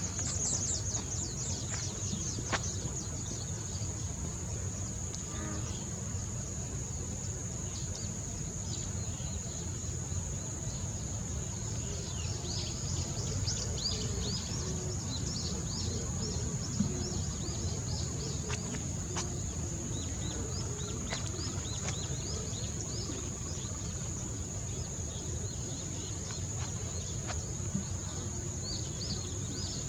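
Outdoor wildlife ambience: a steady high-pitched insect drone, with many short bird chirps over it and a low rumble underneath.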